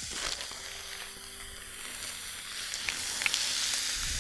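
Beef burger patty sizzling in a hot, dry frying pan with no oil, growing louder near the end, with a couple of light clicks about three seconds in.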